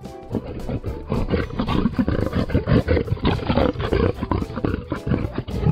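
Male lion roaring: a rapid series of loud, deep, repeated calls.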